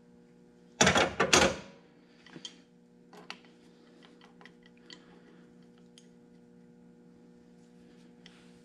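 Steel adjustable wrenches clattering as one is laid down on the car's metal radiator support about a second in. After that come a few faint clicks and taps as the wrenches are fitted onto a braided oil-line AN fitting, over a steady low hum.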